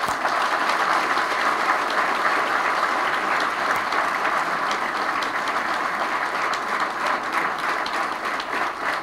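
Audience applauding, the clapping thinning slightly near the end.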